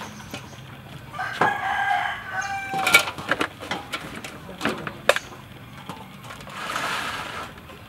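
A rooster crows, one held call about a second in and a rougher one near the end. In between come several sharp metallic clanks from a metal tray and an aluminium basin being handled.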